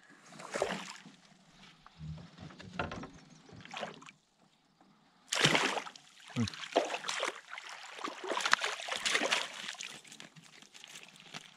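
Water splashing and sloshing at a canoe, with irregular knocks and rattles. A sudden loud splash comes about five and a half seconds in, followed by several seconds of busy splashing.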